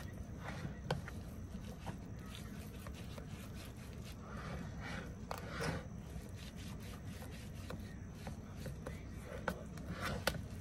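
Silicone spatula spreading and pressing a thick raw oat mixture into a metal baking pan: soft scraping and rubbing, with scattered light clicks as it catches the pan.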